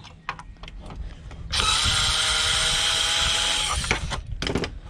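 A few light clicks and knocks, then a power drill-driver runs at a steady whine for about two seconds before stopping.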